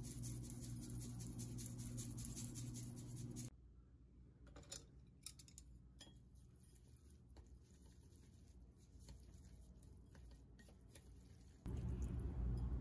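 Sesame seeds shaken from a shaker onto noodles, a quick patter of small clicks over a steady hum. About three and a half seconds in the hum stops, and a few light clicks follow as wooden chopsticks tap a ceramic bowl mixing the noodles; the hum returns near the end.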